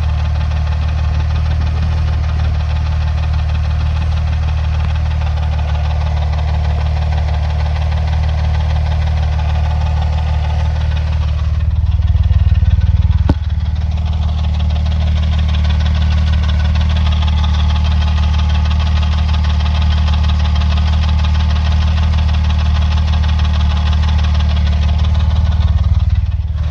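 Porsche 996 Turbo's twin-turbo flat-six idling steadily with a deep hum and an unwanted noise, described as bad. It grows briefly louder twice, and the first swell ends in a sharp click.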